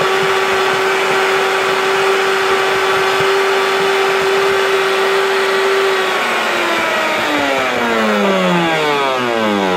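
Sinbo Super Blender SPB-1, a 1600-watt commercial blender, running at high speed crushing ice into fine snow. Its motor whine holds at one steady pitch until about six seconds in, then falls steadily in pitch as the motor slows down.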